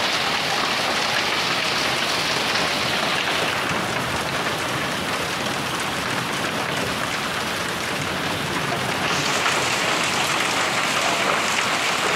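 Hail and heavy rain falling on a wet paved street: a dense, steady patter of hailstones and raindrops striking water and concrete.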